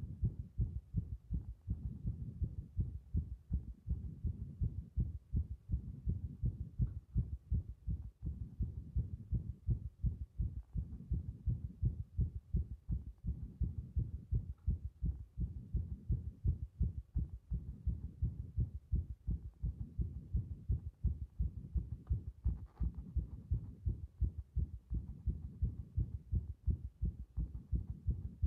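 Heartbeat picked up through a stethoscope chest piece pressed hard against the chest: a continuous run of short, low beats following close on one another, from a heart the uploader labels as having an arrhythmia.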